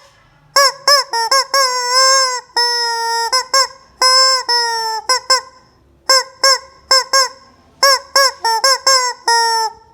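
Rubber squawking chicken toy being squeezed over and over: a run of short honking squawks, with a few drawn-out squawks each held for about a second, two to five seconds in. After a short pause about halfway through, the quick squawks start again.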